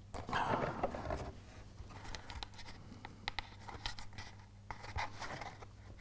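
Tunnel liner sheet being handled and shifted against the baseboard while hot glue sets: faint rustling and scraping with scattered small clicks and taps.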